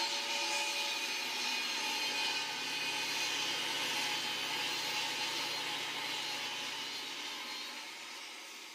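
A power woodworking tool running steadily with a whine, easing off near the end and stopping just after.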